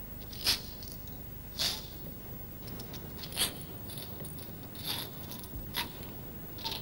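A series of about six short, sharp clicks and scrapes, irregularly spaced a second or so apart, over a faint steady hum.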